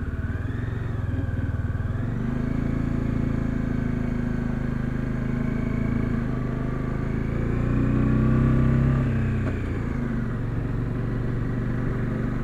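Motorcycle engine running under way as it is ridden. The revs step up about two seconds in, run loudest around eight to nine seconds in, then ease off.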